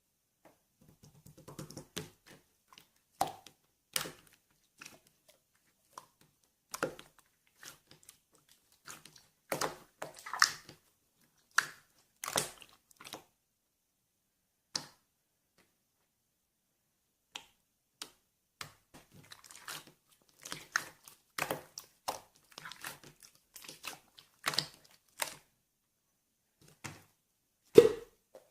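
Clear slime being handled and pressed by hand, giving irregular sticky clicks and pops, with a quiet stretch in the middle and the loudest pop near the end.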